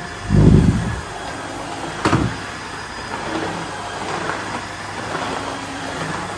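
Cordless wet-and-dry vacuum (a combined vacuum and floor washer) running steadily as its floor head is pushed across the floor. A heavy low thump comes about half a second in, and a sharper knock about two seconds in.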